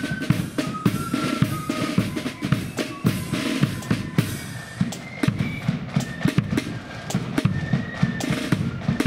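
Marching flute band playing, led by its drum corps: rapid snare drum rolls and strikes with a bass drum beat, flutes faint above the drums.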